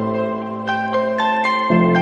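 Background music: a melody of short ringing notes over long held low notes, the bass note changing near the end.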